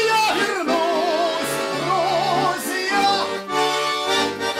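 A man singing a Russian folk-style song with wavering vibrato on held notes, accompanied by a garmon (Russian button accordion) playing steady chords.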